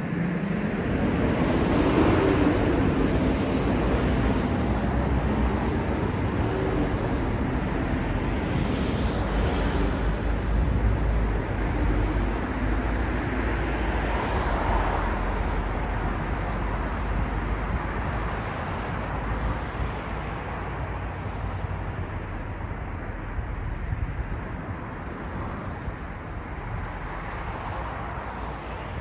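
City road traffic: a vehicle comes up close and loud in the first few seconds, then a steady low rumble of passing traffic that slowly eases off.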